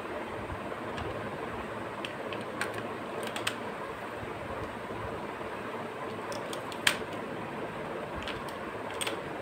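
AA batteries clicking and knocking as they are pushed into a toy's plastic battery compartment. There are scattered sharp clicks, the loudest about seven seconds in, over a steady background hiss.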